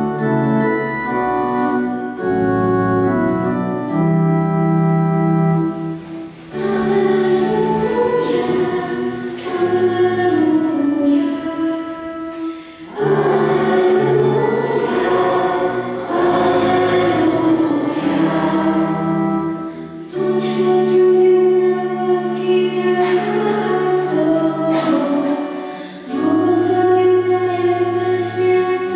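Church pipe organ playing held chords, accompanying singing of a hymn. It goes in phrases of about six to seven seconds with brief breaks between them.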